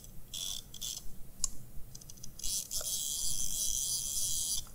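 Hand-held wireless CNC handwheel pendant (XHC-WHB04B-4) being worked: a few short clicks in the first second and a half, then a dense, continuous run of clicking for the last two seconds as its detented dial is turned to jog an axis.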